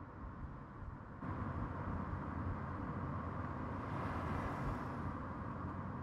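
Tyre and road noise of an electric Volkswagen e-Golf driving past on asphalt, with no engine note. It jumps louder about a second in and peaks with a brighter hiss around four seconds in, as the car passes close.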